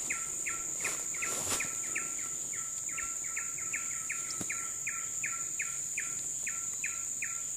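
Steady high-pitched insect drone with a fast, regular run of short falling chirps, about three a second.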